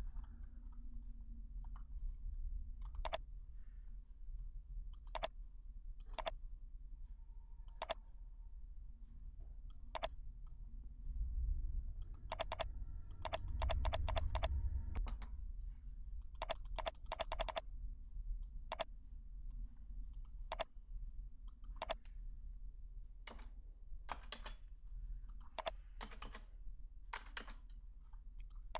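Computer keyboard keystrokes and mouse clicks, spaced every second or two, with quick runs of keystrokes about halfway through. A faint low hum lies under them.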